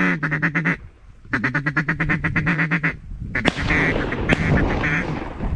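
Duck call blown in a fast feeding chatter: two quick runs of short nasal notes, about a dozen a second, then a rougher stretch with more calling, rustling and a couple of sharp knocks.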